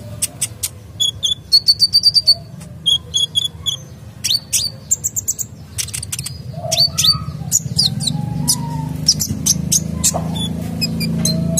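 Male sunbird singing a fast, varied song of sharp high chirps, short trills and quick down-sweeping notes. A low steady hum grows underneath from about halfway through.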